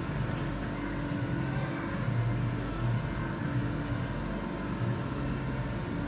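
Steady low hum and rumble of aquarium pumps and filtration running, with low tones that swell and fade every second or so.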